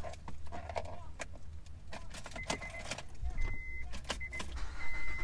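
Inside a Honda Ridgeline's cab, the key clicks in the ignition and the dashboard warning chime gives several short, high beeps while the ignition is switched on, just before the engine is started.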